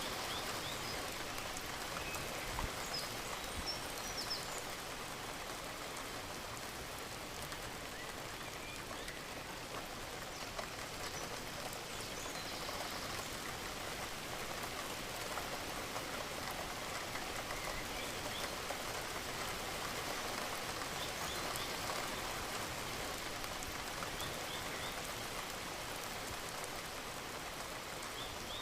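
Steady rain falling, a dense even patter of raindrops on surfaces.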